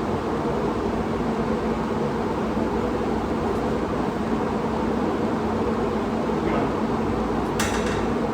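Steady mechanical hum with a constant low tone and hiss, like a running fan, and a single short clack a little before the end.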